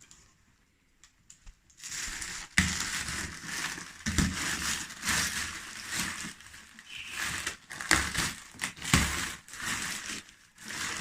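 Packaging being rummaged through and crinkled by hand, irregular rustling and crunching with a few soft knocks, starting about two seconds in.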